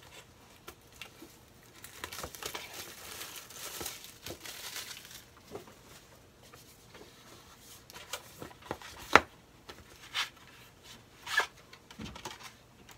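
Rustling and scraping of a small cardboard box and its packaging as it is opened and handled, with scattered sharp clicks and taps in the second half, the loudest about nine seconds in.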